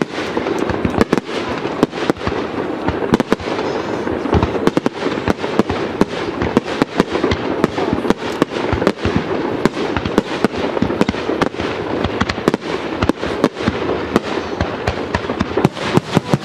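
Aerial fireworks display: a rapid, unbroken run of shell bursts and bangs, several a second, over a continuous rumble.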